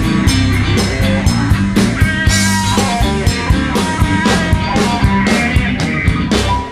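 Blues band playing an instrumental passage: drum kit keeping a steady beat under bass and electric guitar, dropping away right at the end.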